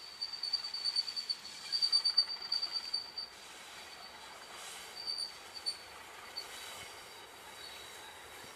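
High-pitched flange squeal from a Class 37 diesel locomotive's wheels as it rounds a curve into a station. The squeal pulses loudly for about the first three seconds, then fades to brief, broken squeaks over a faint running rumble.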